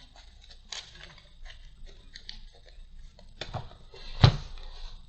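Trading cards being handled and laid down on a table: small clicks and rustles of card stock, with a knock about three and a half seconds in and a louder thump just after four seconds.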